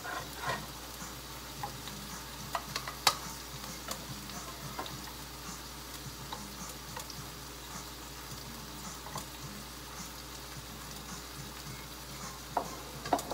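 Food sizzling in a frying pan: a steady hiss with small crackling pops. A few sharp clicks of a metal spatula against the pan, the loudest about three seconds in and two more near the end.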